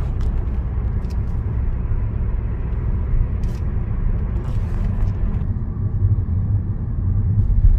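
Car driving along the road, heard from inside the cabin: a steady low rumble of road and engine noise.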